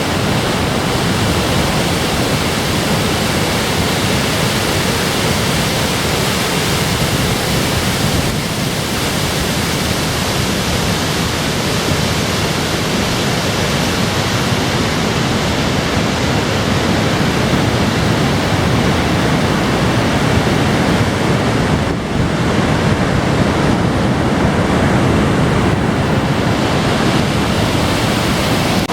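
Loud, steady rush of a waterfall.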